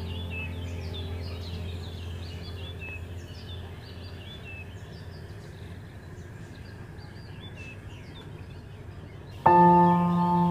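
Many small birds chirping rapidly over a low, steady background-music drone that fades away. About nine seconds in, a loud sustained ambient music chord comes in suddenly.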